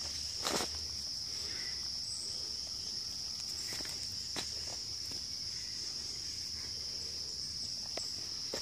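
A steady, high-pitched insect chorus, with a few short scuffs and clicks of footsteps on a dirt path.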